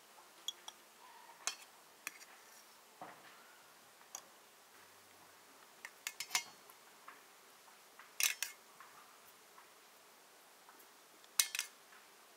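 Metal fork and spoon clinking against a cut-glass plate and a stainless steel frying pan while serving fried pumpkin pieces: scattered sharp clinks, the two loudest about eight seconds in and near the end.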